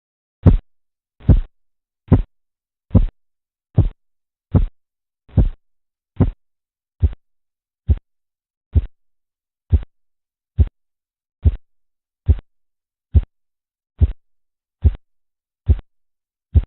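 Korotkoff sounds heard through a stethoscope over an artery under a deflating blood pressure cuff: a steady pulse of about twenty short beats, a little more than one a second, with silence between them.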